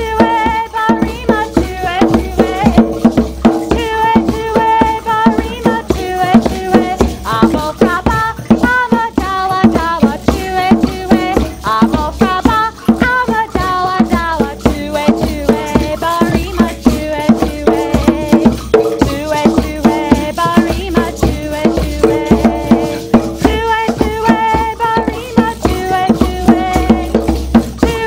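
A welcome song sung by a woman leading a group of voices, over a steady rhythm of shakers and drums.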